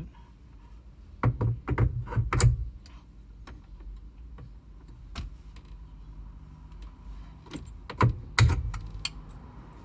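Hard clicks and knocks of parts being handled while fitting a steering-wheel quick-release hub. They come in a quick cluster about a second in, single clicks follow, and another cluster comes about eight seconds in.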